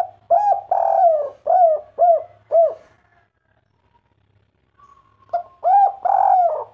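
Spotted dove cooing the 'kuk 3' song: a short note, a long drawn coo, then three short arched 'kuk' notes. The phrase begins again about five seconds in.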